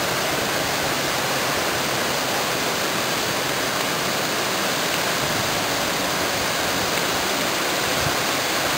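Vachiratharn Waterfall falling hard: a steady, full rush of falling water.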